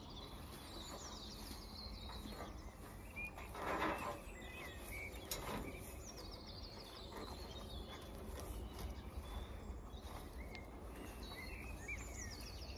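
Small birds chirping, with several short falling trills, over a low steady background hum. About four seconds in comes a brief rustle, and a sharp click follows soon after, as a hay net is handled and tied to a fence rail.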